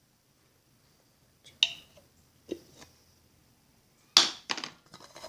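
A handful of short, sharp clicks and knocks from small paint bottles and containers being handled and set down. The loudest comes about four seconds in.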